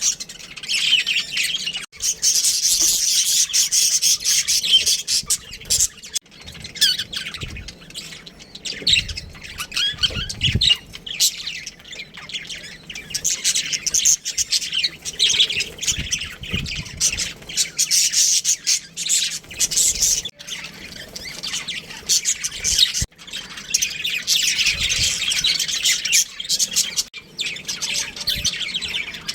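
Budgerigars chirping and chattering in a dense, unbroken stream of high-pitched calls, with scattered sharp clicks.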